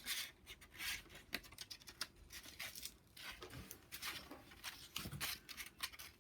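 A sheet of sandpaper rustling and scraping as it is wrapped over an orbital sander's pad and clamped in place, with a few light clicks.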